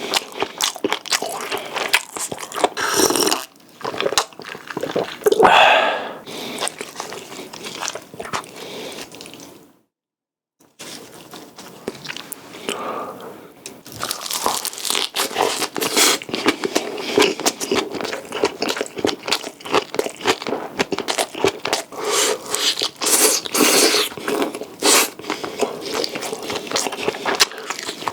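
Close-miked eating: biting and chewing with many crisp crunches and wet mouth clicks. The sound breaks for about a second of silence some ten seconds in.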